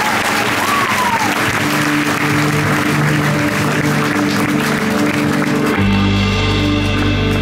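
Concert crowd applauding, with a few whistles, while held musical notes come in underneath; near the end a deep bass note enters and the applause falls away, leaving the music.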